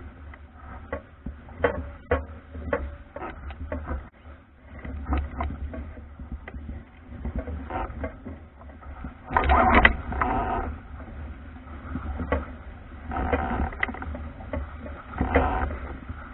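Wooden Albacore sailing dinghy under way in choppy water: water rushing along the hull, with louder surges of spray every few seconds as the bow hits waves. A steady low wind rumble on the microphone and frequent sharp clicks and knocks run through it.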